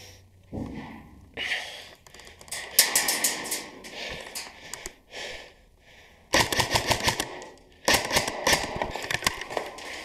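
Airsoft electric gun (AEG) firing in rapid full-auto bursts, a fast rattle of shots: a short burst about three seconds in, then two longer bursts of about a second and a half each from about six seconds in.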